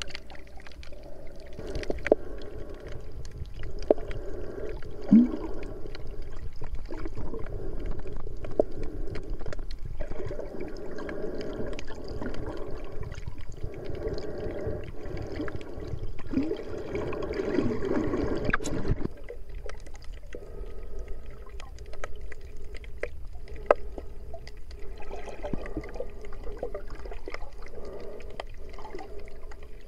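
Muffled underwater wash of moving water heard through an action camera's waterproof housing while snorkeling, with scattered short clicks throughout. The heavier low wash eases off about 19 seconds in.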